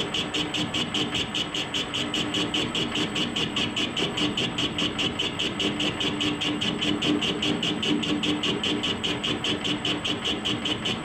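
Warco 280 metal lathe turning a cast wheel rim: steady motor and gearing hum under a rhythmic pulsing of about five beats a second as the tool cuts the outer diameter.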